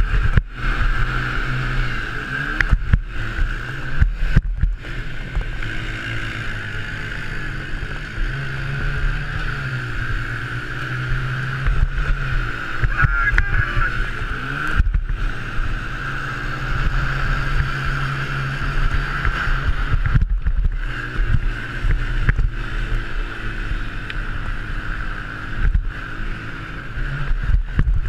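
Honda TRX90 mini quad's small four-stroke single-cylinder engine racing, its pitch rising and falling over and over as the throttle is worked through corners and straights, with other quads close by. Heard from a helmet camera, with wind noise and a few split-second dropouts in the sound.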